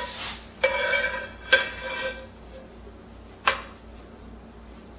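Metal cookware clanking: four ringing knocks of a utensil against a metal pot, at the start, about half a second in, around a second and a half, and again about three and a half seconds in.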